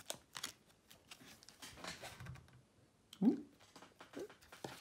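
A hand-held stack of trading cards being shuffled through, card edges sliding and snapping against each other in a scatter of faint soft clicks. A brief rising vocal sound, like a short hum, about three seconds in.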